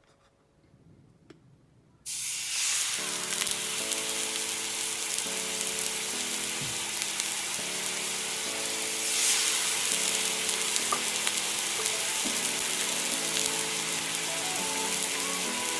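Vinegar hitting a hot, empty non-stick frying pan and sizzling hard, starting suddenly about two seconds in and holding steady as it boils and steams.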